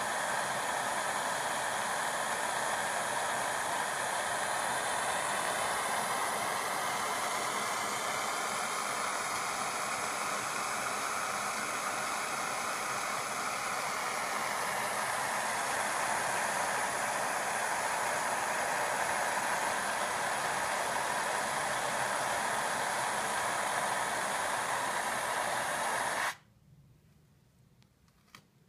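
Gas torch flame hissing steadily as it fires powdered enamel onto copper pieces, then cut off suddenly near the end, followed by a faint click.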